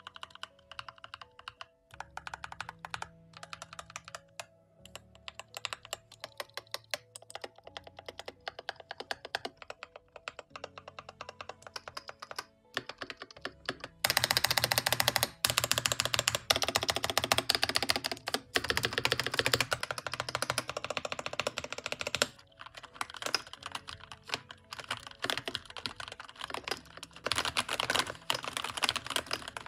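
Typing on a Keychron K8 Pro mechanical keyboard with pre-lubed K Pro Banana tactile switches: separate keystrokes at first, then rapid continuous typing from about the middle for several seconds, and fast again near the end.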